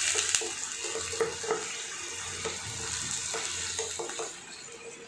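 Water sizzling and bubbling in a hot stainless-steel frying pan with fried shallots, just after a few spoonfuls of water went into the hot oil, while a spoon scrapes and knocks against the pan as it is stirred. The sizzle dies down about four seconds in.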